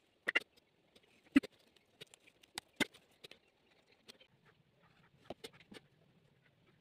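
Scattered light taps and clicks, about a dozen, with faint scraping between them, from a paintbrush, marker and hands working on paper. A faint low hum comes in about four seconds in.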